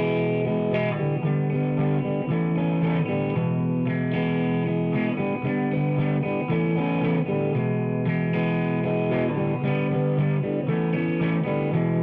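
Background music: electric guitar playing with distortion over a steady beat.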